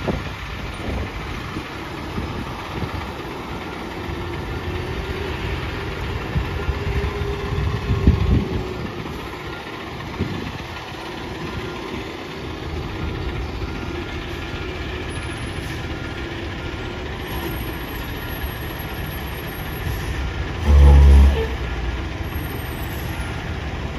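Fire ladder truck's diesel engine running at low speed as the truck manoeuvres, with a loud low blast about a second long near the end.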